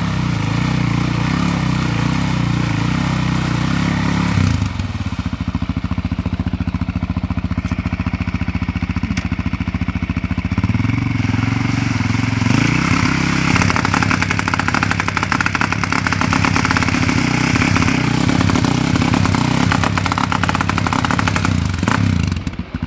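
Sport quad's engine revving hard as its rear wheels spin in deep mud, the revs dropping about four seconds in and climbing again from around ten seconds on. The quad is stuck, beached on its axle in the mud.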